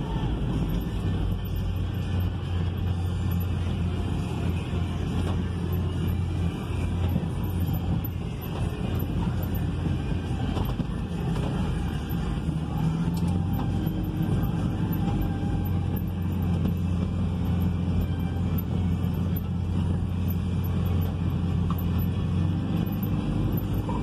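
Steady low drone of an engine running, heard from inside a vehicle's cab.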